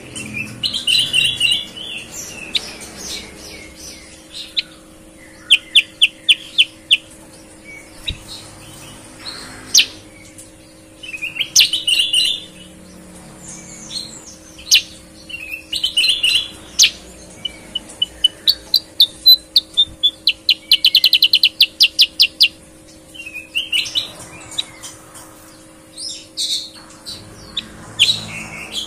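Caged bulbuls singing clear, whistled phrases, with sharp chips and fast rapid-note trills between. A faint steady hum runs underneath.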